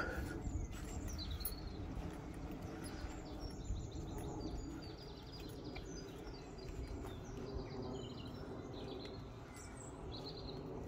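Small birds chirping and singing in short, repeated phrases over a steady low outdoor background noise.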